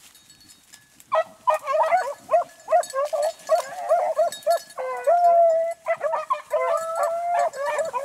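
A pack of beagles baying, starting about a second in: several voices overlapping in short choppy cries with some longer drawn-out bawls. These are hounds giving tongue while running a rabbit's track.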